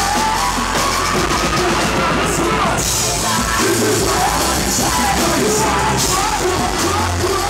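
Live hip-hop concert music through a PA: a loud, bass-heavy beat with a voice yelling over it.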